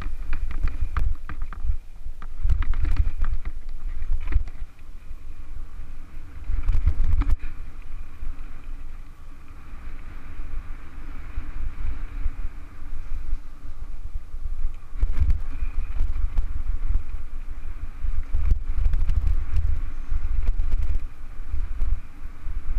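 Wind buffeting the microphone of a camera on a mountain bike riding down a rough dirt trail, a constant low rumble, with the bike's frame and parts knocking and rattling as it jolts over ruts and stones.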